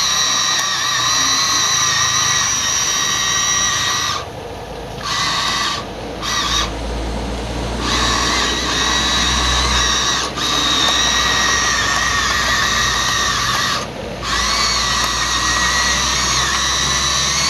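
Huina 1593 RC excavator's small electric motors whining as the model drives, swings its cab and moves its boom and arm; the high, steady whine cuts out briefly several times between movements, with a low rumble underneath at times.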